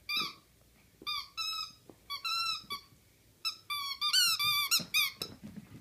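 Squeaky chicken toy squeaking again and again as a puppy works it, in short clusters of quick high squeaks that come thickest near the end.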